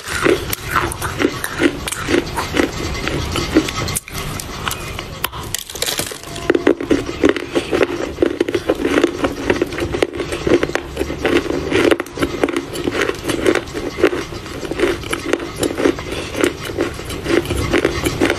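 A person chewing a bitten-off piece of dry loess clay, crunching and grinding in a steady rhythm of about two to three chews a second, with crisp crackles throughout.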